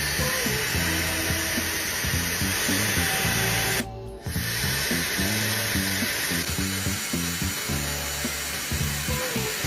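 Dreame Hair Glory hair dryer blowing steadily, its motor and airflow making an even rushing whir that cuts out briefly about four seconds in, over background music.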